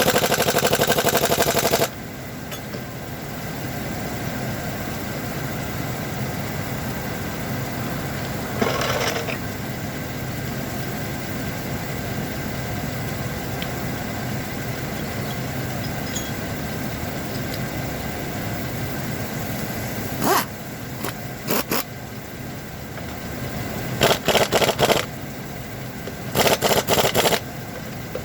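Impact wrench running lug nuts on in rattling bursts: a long one at the start, a short one about nine seconds in, and two more near the end. A vehicle engine idles steadily underneath.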